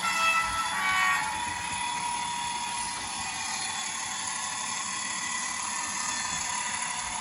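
Model train running on the layout: a steady drone and hiss, after a few short tones in the first second.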